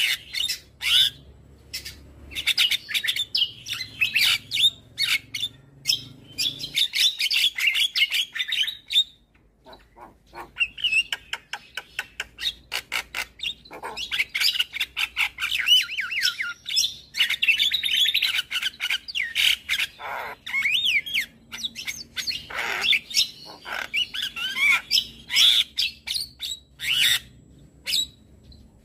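Javan myna singing a fast, varied song of chattering notes, squawks and whistled glides, with a short pause about a third of the way in.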